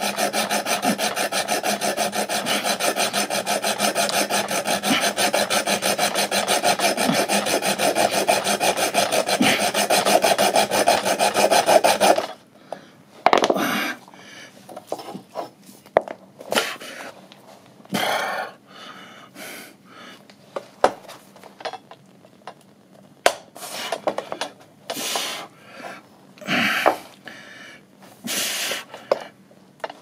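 Hacksaw cutting through a pipe by hand, a steady fast rasping of strokes that stops abruptly about twelve seconds in. After that come scattered short scrapes and knocks as the pipe pieces are handled and bent.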